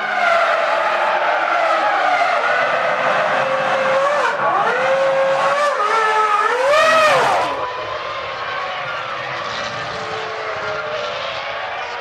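Formula One V10 race engines at high revs, the pitch dipping and climbing again through several gear changes; one car is loudest about seven seconds in, after which the engine sound drops to a quieter, steadier drone of cars further off.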